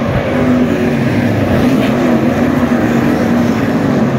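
Several sprint car engines running hard on the track, a loud, steady drone that wavers a little in pitch as the cars circle.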